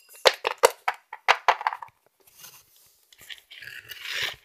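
Handling noise as a hand moves a small plastic toy figurine on a wooden floor: a quick run of light clicks and taps, then a rough rubbing sound in the last second.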